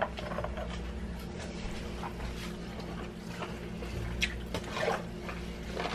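Quiet kitchen with a steady low hum, and a few faint clicks and knocks about four to five seconds in as meat is handled over a pot of greens.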